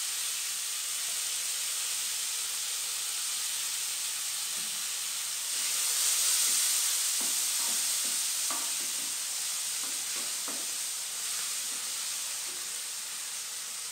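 Shallots, garlic and red chili sizzling in oil in a nonstick wok while a wooden spatula stirs them, with soft scrapes and taps of the spatula. The sizzle grows louder about six seconds in, then settles back.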